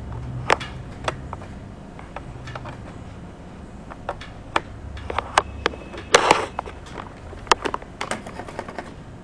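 Irregular sharp clicks and taps of a computer mouse and keyboard, with a quick flurry about six seconds in, over a faint steady low hum.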